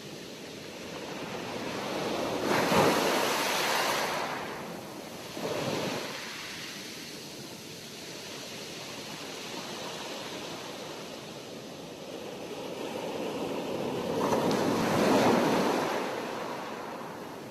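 Sea waves breaking and washing ashore. Two big waves swell and crash, one about three seconds in and one near the end, with a smaller wash soon after the first and a steady hiss of surf between.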